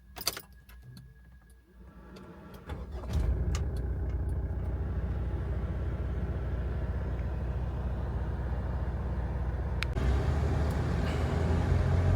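A 1993 Mitsubishi Pajero V46's 2.8-litre four-cylinder turbodiesel cranks and starts about three seconds in, after a click, then idles steadily. The idle grows a little louder about ten seconds in.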